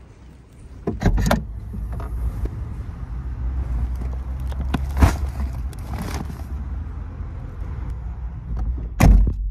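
Car, heard from inside: a couple of knocks about a second in, then a steady low engine rumble, with a sharp knock midway and a loud thump near the end.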